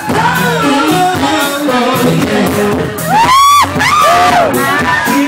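Live singing into a microphone with a band playing behind. About three seconds in, a loud high note slides up and is held briefly.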